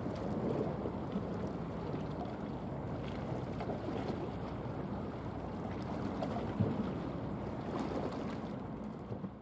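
Steady low drone and rumble of a passing container ship under way, with wind noise on the microphone; the sound begins to fade near the end.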